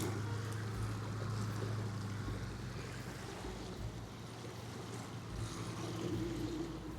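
Soft background music with low held bass notes that change every second or so, over a steady hiss of wind and water.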